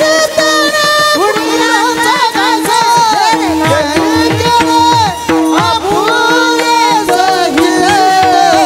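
Two male voices singing Warkari devotional pramane in high, ornamented voices, with a held accompanying tone beneath them. Mridang drum strokes beat under the singing from about three seconds in.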